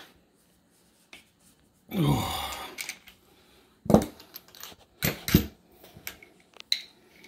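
Hand tools and brass flare fittings being handled: a few sharp metal clacks and clinks, the loudest about four seconds in and two more a second later. About two seconds in there is a short low sound that falls in pitch.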